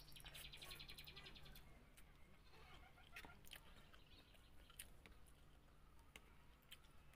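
Faint chewing and wet mouth clicks from eating spicy pancit canton noodles, over a low steady hum. A rapid high chirping trill sounds during the first second and a half.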